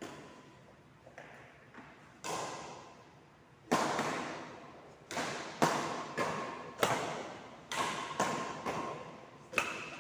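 A series of about eight sharp impacts, coming every half second to a second through the second half, each dying away over about a second with a faint ring.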